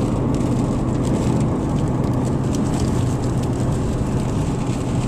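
Steady car cabin noise from driving, with the engine and tyres humming low and light rain ticking on the car.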